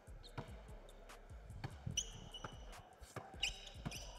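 Basketball being dribbled on a hardwood gym floor: a run of short bounces. There are brief high squeaks about two seconds in and again near the end.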